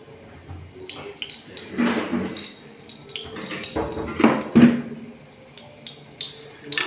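Steel kitchen vessels being lifted and set down on a counter, with louder clatters about two seconds in and again around four seconds in.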